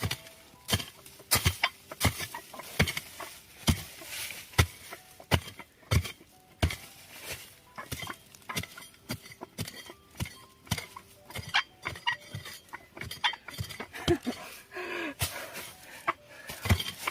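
Hoe chopping into the ground to dig out a winter bamboo shoot: a run of sharp, irregular strikes, about one or two a second.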